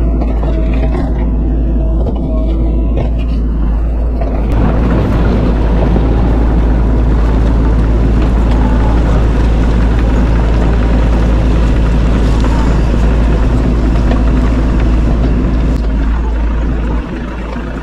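Bobcat E42 mini excavator's diesel engine running steadily, getting louder about four and a half seconds in and easing slightly near the end.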